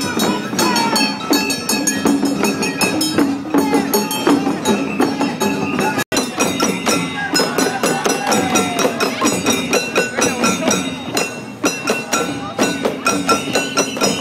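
Japanese matsuri festival music: a fast, steady rhythm of jingling, clacking percussion with crowd voices over it. The sound cuts out for an instant about six seconds in.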